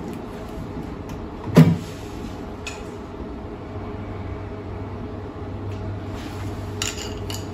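Steady low hum with one sharp knock about a second and a half in and a few light clicks near the end, from hands and tools working at a car's sill. No welding arc is heard.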